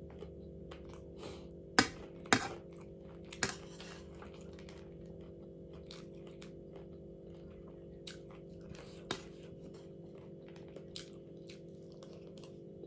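A person chewing and crunching crunchy food close to the microphone, with irregular crisp crunches that are loudest and most frequent in the first few seconds, then sparser.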